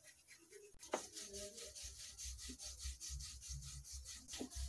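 Wooden rolling pin rolled back and forth over flour-dusted stuffed paratha dough on a rolling board: a faint rhythmic rubbing, several strokes a second, with one light knock about a second in.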